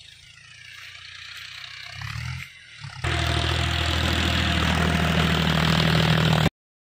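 Green John Deere tractor's diesel engine running while ploughing the field, coming closer: faint and slowly growing louder at first, much louder from about three seconds in, then cutting off abruptly near the end.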